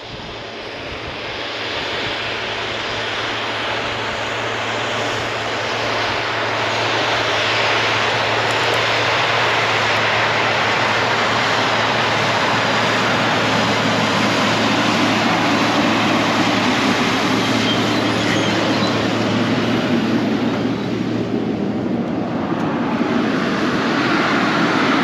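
Tractor engine running steadily, growing louder over the first several seconds. A low hum in it drops away about twenty seconds in.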